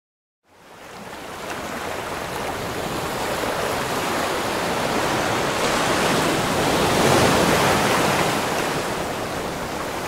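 Sea surf: a steady rush of waves that fades in at the start, swells to its loudest about seven seconds in, then eases a little.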